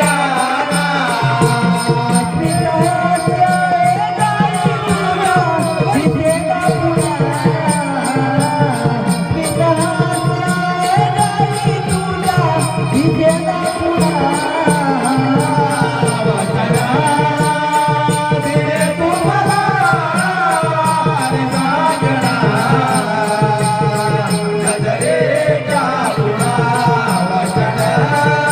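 A Marathi folk song: a solo voice sings a long, winding melody over a steady accompaniment with a regular jingling, rattling percussion beat.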